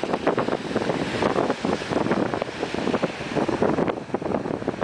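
Strong wind gusting and buffeting the microphone, a rough, constantly fluctuating rumble and roar.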